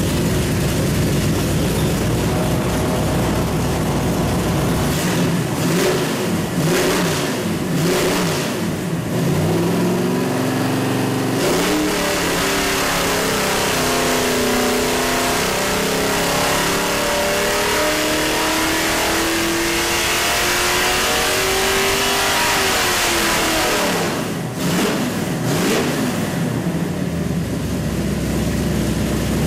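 383 cubic-inch small-block Chevy stroker V8 with a carburettor, running on an engine dyno. It idles, is revved in a few short blips, then makes a long dyno pull that climbs steadily in pitch for about ten seconds. It then backs off, revs twice more and settles back to idle near the end.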